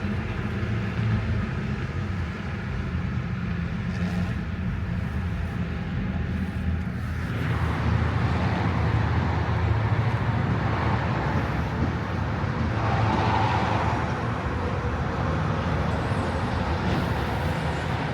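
Road vehicle driving: a steady low rumble of engine and tyres with an even hum for the first seven seconds or so, after which a louder rushing road noise takes over.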